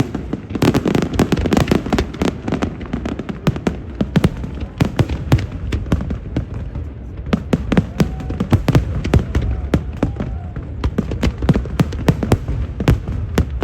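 Fireworks exploding in a rapid, dense barrage: many sharp bangs and cracks in quick succession over a continuous rumble, from a large fireworks display.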